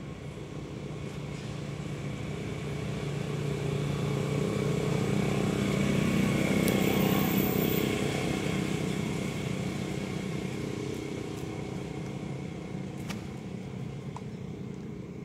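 A motor vehicle's engine passing by, growing steadily louder to a peak about halfway through and then fading away.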